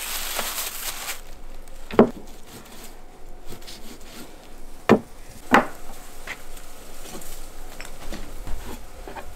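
Plastic bag rustling briefly, then a cleaver cutting into a raw lamb leg and striking a wooden chopping board: three sharp knocks, one about two seconds in and two close together around five seconds.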